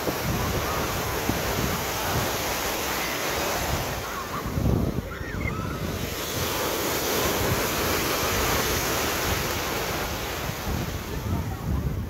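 Ocean surf breaking and washing in over shallow water along the shore, a steady rushing wash, with wind buffeting the microphone.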